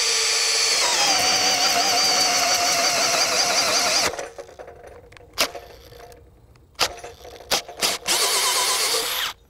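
Makita 40V XGT GPH01 brushless drill in its low speed driving a 3 5/8 inch self-feed bore bit into wet timber: the motor whine drops in pitch about a second in as the bit bites and loads it down, then stops about four seconds in. Several sharp knocks follow, and the drill runs again briefly near the end.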